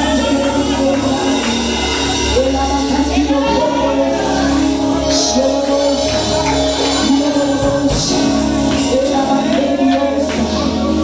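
Gospel worship music: voices singing over a steady accompaniment, with a tambourine beating along.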